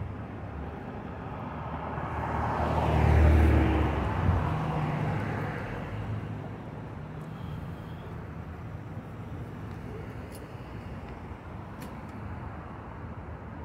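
Cars driving past on a city street. One passes close about three seconds in, its tyre and engine noise swelling and then fading into steady, quieter traffic.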